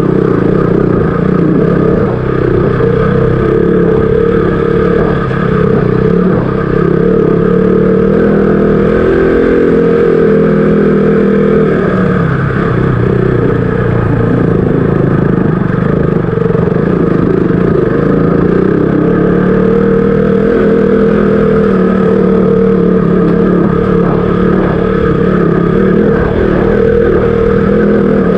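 KTM RC200's single-cylinder engine running steadily while riding, its pitch rising and falling with the throttle about ten seconds in.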